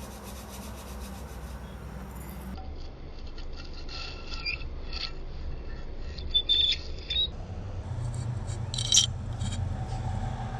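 Brake pad wear indicator tab scraping against the brake disc: a rubbing metallic scrape with short high squeals, the sharpest about six and nine seconds in. It is the warning that the pads are worn down to the indicator.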